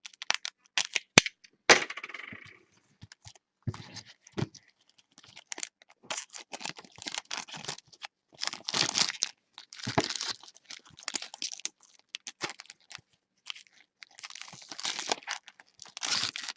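Baseball trading cards and their foil pack wrappers being handled and sorted by hand: irregular short rustles, card slides and sharp clicks.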